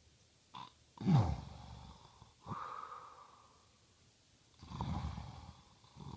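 A man snoring in his sleep: a loud snort about a second in, falling in pitch, then a breathy exhale, and two more snores near the end.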